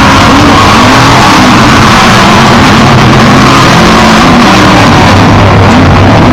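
Several off-road race engines of Trophy Trucks and Class 1 buggies running and revving together, their pitches rising and falling against each other. The sound is very loud and steady in level.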